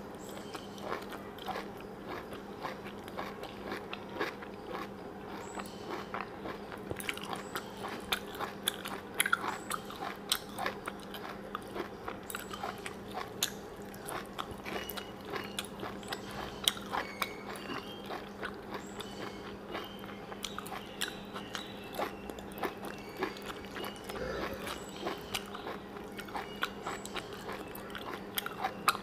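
Close-miked eating by hand: wet chewing of rice and Malabar spinach curry, with many small mouth clicks and smacks. A faint steady hum sits underneath.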